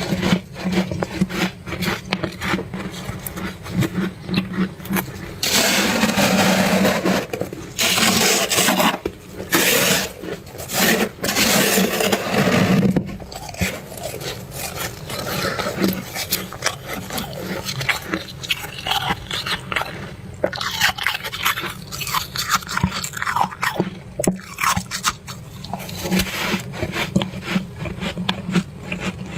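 Fluffy freezer frost being scraped and crunched: a dense, irregular crackle with several longer, louder scraping spells in the middle.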